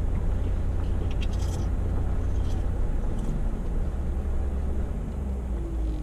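Pickup truck driving along a gravel road, heard from inside the cab: a steady low rumble of engine and tyres, with a few light clicks and rattles.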